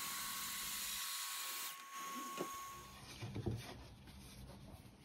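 DeWalt track saw cutting through an oak-veneered board: a steady hiss that stops about 1.7 s in. Near the end come faint clicks and knocks of thin oak strips and bar clamps being handled on a workbench.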